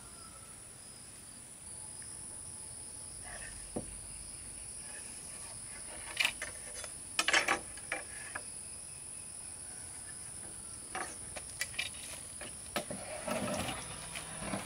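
Rough wooden planks knocking and clattering as they are shifted and lifted from a pile, a few separate knocks starting about six seconds in. Under it, a steady high-pitched insect drone.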